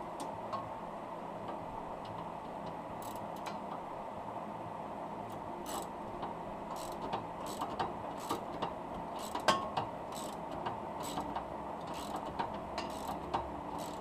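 Hand ratchet wrench clicking in short irregular runs as it turns the coilover's top mounting bolts, the clicks coming faster from about halfway through.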